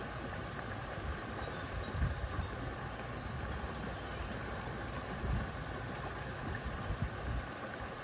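Creek water running over a shallow rocky riffle: a steady rush of flowing water. A little after three seconds in, a short, faint high trill of rapid ticks sounds above it.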